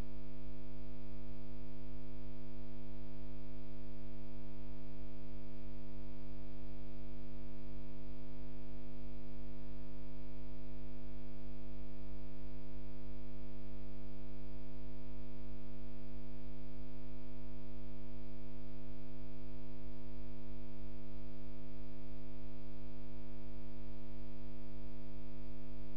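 Steady electrical hum with many overtones, constant in pitch and level, on an otherwise empty audio feed.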